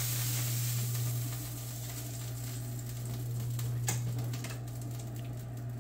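Largemouth bass fillets sizzling in oil in a cast iron pan, the sizzle dying down about a second and a half in as the gas burner has just been turned off. A steady low hum runs underneath, and a single sharp click comes just before four seconds in.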